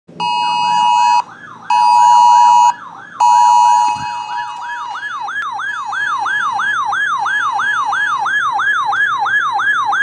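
RadioShack NOAA weather alert radio sounding its alarm for a flash flood warning. It gives three loud, steady electronic beeps of about a second each. These are overlaid by a siren-like warble that sweeps up and down about three times a second and keeps going after the beeps stop.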